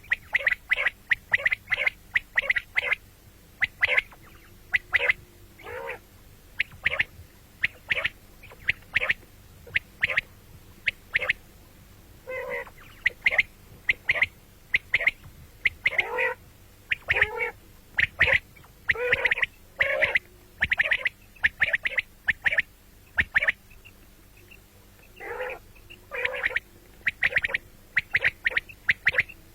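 Quail calling: a long run of short, sharp calls repeated in quick bunches, some with a lower, rougher note beneath, and brief pauses between groups.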